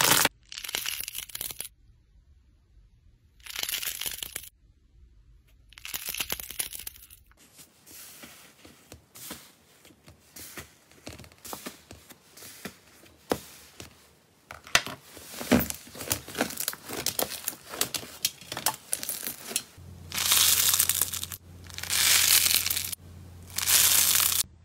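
Slime being squeezed, pressed and poked by hand. It makes a string of crackling, crunching and popping sounds, with many small clicks in the middle part. In the last few seconds the squishing sits over a steady low hum.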